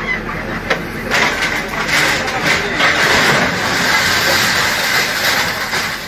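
JCB backhoe loader demolishing a brick wall: its diesel engine runs while masonry breaks and rubble crashes down. A couple of sharp knocks come just before a second in, then a dense, loud clatter and rumble of falling debris.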